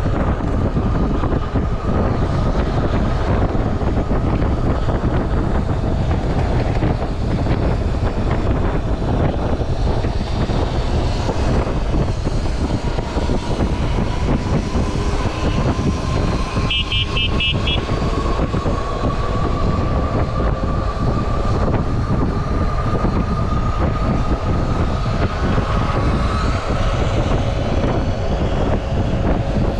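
Wind rushing over the microphone while riding an electric bike, with the faint whine of the bike's electric motor rising slowly in pitch as it gathers speed.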